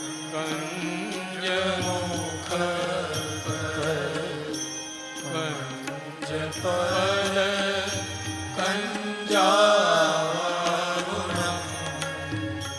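Devotional Hindu bhajan music: a slow, wavering melodic line over a steady held drone, swelling louder a little past the middle.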